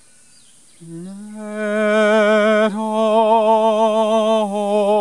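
A man singing in an operatic style: long held notes with a strong vibrato, sliding up into the first note about a second in, with a short break and a slight step down in pitch later on.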